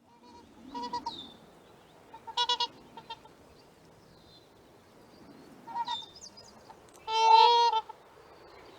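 Trumpeter swan calling: several short honks, some in quick clusters, with the longest and loudest call near the end.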